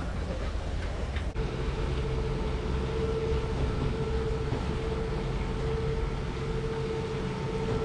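Boat hoist's winch machinery running as it lifts a fishing boat out of the water on slings: a low rumble, joined after a brief break about a second and a half in by a steady whine.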